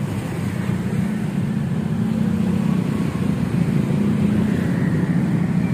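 A motor running steadily: an even, low drone.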